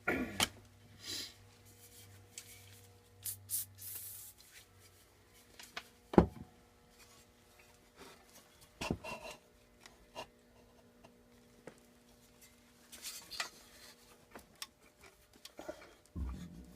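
Scrapes, clicks and knocks of hand tools working on metal engine parts of a small Briggs & Stratton engine, a part that is stuck and will not come off. One sharp knock about six seconds in stands out above the rest.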